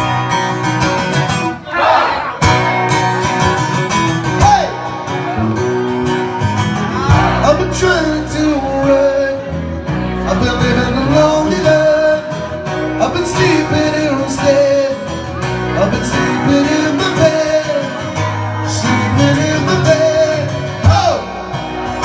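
Live acoustic pub music: an electric bass guitar and a strummed acoustic guitar playing a song, with singing over them.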